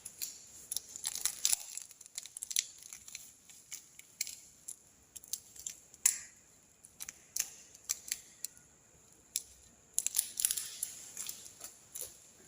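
Clear slime with glitter being squished and stretched by hand, giving irregular sticky clicks and crackling pops. They come thickest about a second in and again near the end.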